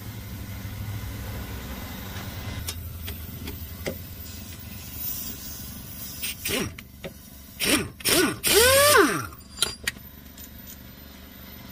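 Pneumatic impact wrench run in a few short bursts about two-thirds of the way in, loosening a brake caliper bracket bolt; the last burst winds down with a falling pitch.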